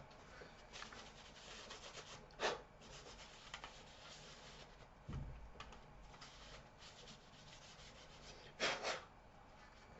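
Faint rubbing and wiping as the laptop's DVD drive is cleaned by hand, with two short louder scrapes, one about two and a half seconds in and one near the end, and a dull thump midway.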